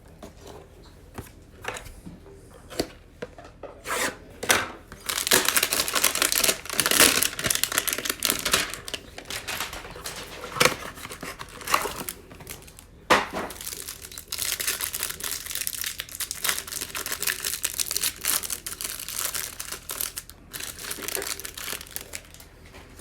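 Trading-card hanger box packaging being torn open and its plastic wrap crinkled: a few light clicks and rustles at first, then long stretches of dense crinkling and tearing, with a sharp snap about thirteen seconds in.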